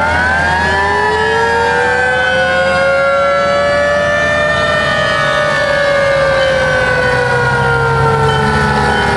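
A vintage fire engine's mechanical siren winds up to a peak about a second in, then slowly winds down in pitch as it coasts. A truck engine runs low underneath.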